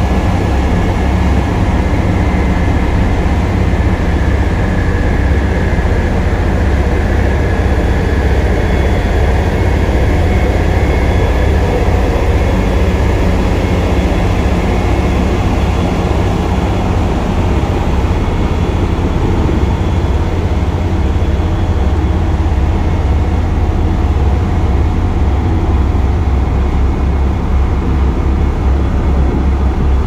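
Diesel engines of a line of LiuGong single-drum road rollers running as the machines drive past in convoy: a steady, heavy low rumble.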